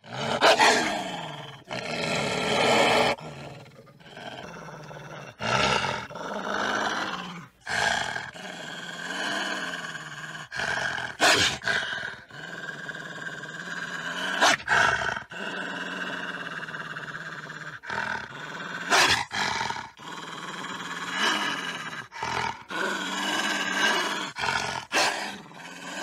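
Wolf growling and snarling: a long run of rough growls broken by many short, sharp snarls.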